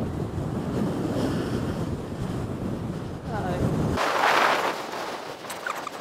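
Strong wind buffeting the microphone over the sound of surf on the beach. About four seconds in the low rumble drops away abruptly, leaving a hiss of wind and waves.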